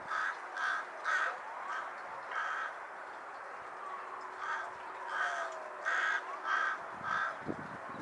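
Carrion crow cawing: a run of about five harsh caws, a pause of about two seconds, then another run of five.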